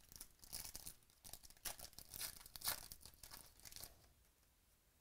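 Foil wrapper of a 2017 Select football card pack being torn and crinkled by hand: a run of short rips and rustles that stops about four seconds in.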